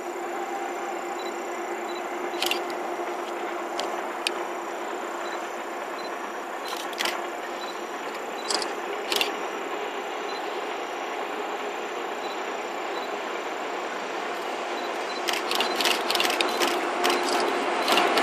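Freight train hauled by two KORAIL 8000-class electric locomotives approaching: a steady distant rumble with scattered sharp clicks. About fifteen seconds in, the clicks of the wheels on the rails come thick and fast and the sound swells as the train draws near.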